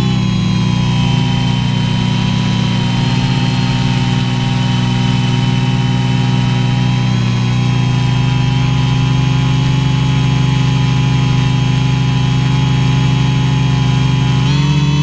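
A home-built quadcopter's brushless motors and propellers run steadily in flight, making a loud whine of several steady tones. It is heard from the camera mounted on the craft. The pitch shifts slightly at the start and again near the end.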